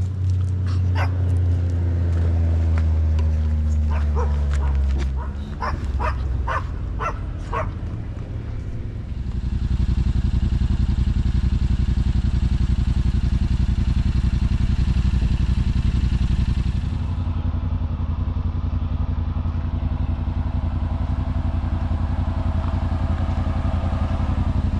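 Small dogs, the owner's Yorkshire terriers, yapping rapidly many times over the steady idle of a Yamaha Wolverine RMAX's parallel-twin engine. About nine seconds in the barking stops, and the engine runs on alone, louder.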